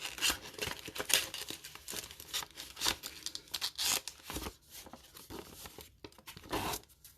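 Crinkling and rustling of sealed booster-pack wrappers and paper envelopes being handled, a dense run of irregular crackles that thins out about halfway through, with one louder crackle near the end.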